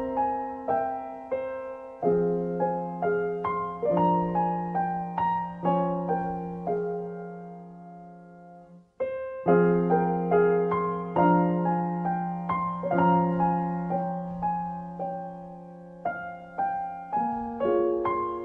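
Background music: gentle solo piano, notes struck and left to ring. About halfway through it fades almost to nothing, then the piece starts again abruptly.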